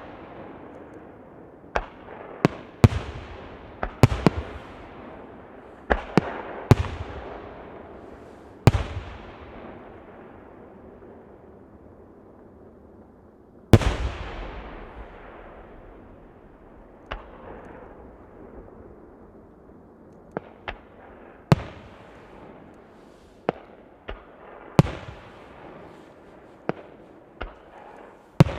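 Aerial fireworks shells bursting overhead: about twenty sharp booms at irregular intervals, several trailing off in long fading rumbles. There is a lull of a few seconds before the loudest burst near the middle, then a quicker run of smaller bangs.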